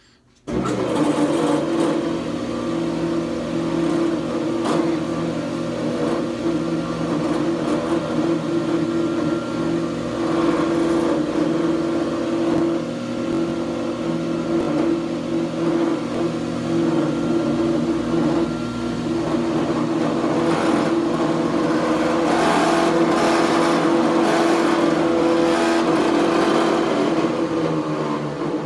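Grizzly G0634XP jointer-planer switched on about half a second in, its motor and cutterhead running with a steady hum. From about 21 s a rougher, scratchy noise joins the hum. This is the weird noise the owner suspects has something to do with a bearing.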